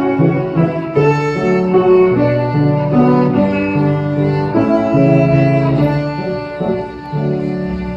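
Child playing a quarter-size violin with grand piano accompaniment: a slow tune of held, bowed notes over low piano chords. The last note dies away near the end.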